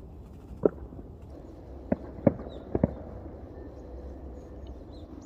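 Several short, dull thumps, two of them in quick succession near the middle, over a faint steady background, with small birds chirping faintly in the second half.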